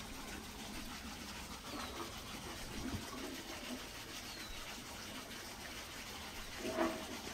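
Faint outdoor ambience with a couple of short, falling bird chirps and a brief louder call or knock near the end.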